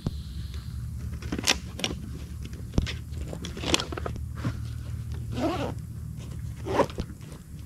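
Footsteps crunching irregularly on dry leaves and twigs along a forest trail, with scattered sharp cracks, over a steady low rumble.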